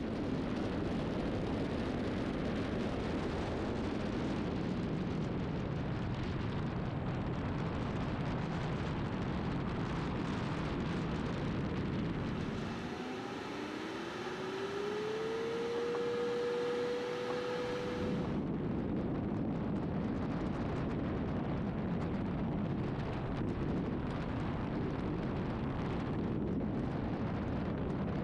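Steady wind noise from air rushing over a wing-mounted camera on a glider in flight. For several seconds around the middle the rush changes, and a single tone glides upward and then holds before the wind noise returns.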